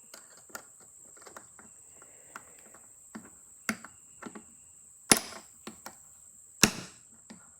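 Hammer tapping a small steel punch to drive a stuck bearing out of a phonograph governor: light taps and clicks, then three hard, ringing metal strikes about a second and a half apart.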